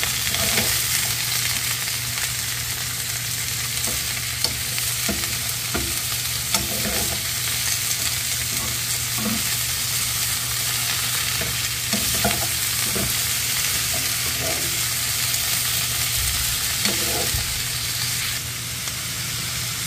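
Julienned bitter gourd sizzling in hot oil in a pan, stirred with a metal spatula that now and then scrapes and clicks against the pan.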